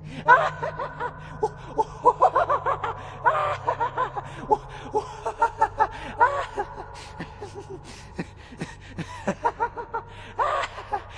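A voice laughing and snickering in quick, repeated short syllables, over a steady low hum.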